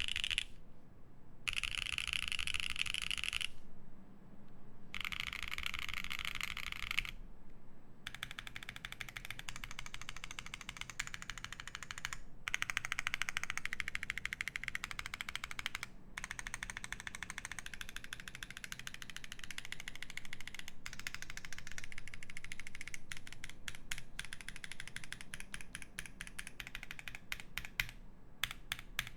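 Fast typing on an Aurora Input Series 65 mechanical keyboard with lubed Boba U4T tactile switches, an FR4 plate and GMK keycaps: a dense stream of keystrokes that thins to scattered separate key presses near the end. In the first seven seconds there are three short bursts, each a couple of seconds long, of denser, more continuous clatter.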